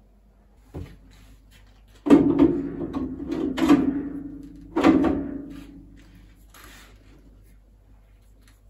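The heavy metal door of a pin mill's grinding chamber is swung shut and handled after a sieve change. A loud metallic clank comes about two seconds in and another near the middle, each ringing on for about a second, with lighter knocks between them.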